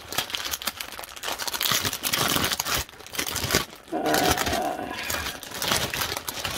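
A thin plastic garment bag crinkling and rustling in irregular crackles as clothing is handled and pulled out of it.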